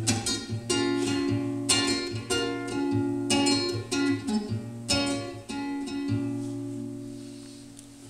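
Classical guitar playing the closing chords of a song: a run of strummed and plucked chords, then a last chord left ringing and fading away over the final two seconds.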